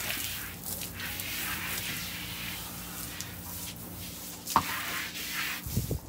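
Water from a hose spraying onto a horse's wet coat: an uneven hissing splash that swells and fades, with one sharp knock about four and a half seconds in.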